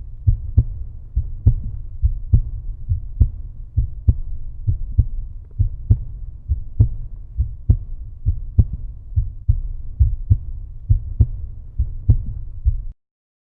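Bass-heavy background music with a steady thumping beat, cutting off abruptly near the end.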